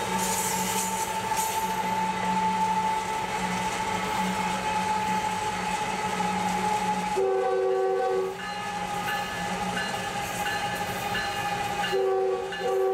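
CSX GE diesel locomotive running alongside with a steady engine hum and wind noise from the open car window, then its air horn blowing a loud chord about seven seconds in and again near the end.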